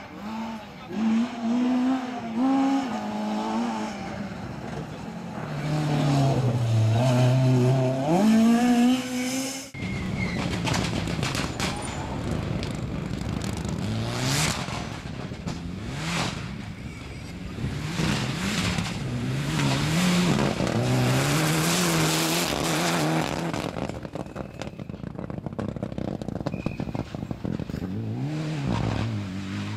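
Rally cars driven flat out on a gravel stage: engines rev up and down through gear changes as the cars pass, with tyres scrabbling on loose gravel. About ten seconds in the sound cuts abruptly to a Mitsubishi Lancer Evolution passing at full throttle, its engine note rising and falling with each shift.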